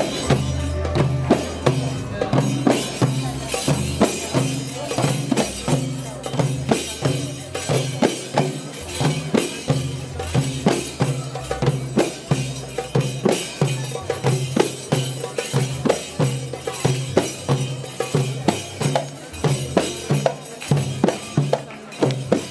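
Live music with a tambourine and drums keeping a steady, driving beat over repeating bass notes.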